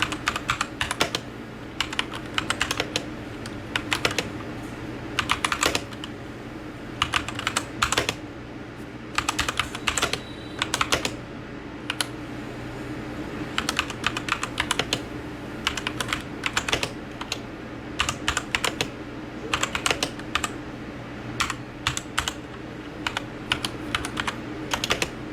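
Typing on a MageGee MK 75% mechanical keyboard: rapid clusters of key clicks in short bursts with brief pauses between them.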